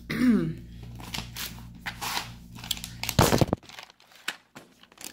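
Crinkling and clicking as packaged craft supplies and the camera are handled. A loud rub or knock on the camera comes about three seconds in, and a low background hum cuts out just after it.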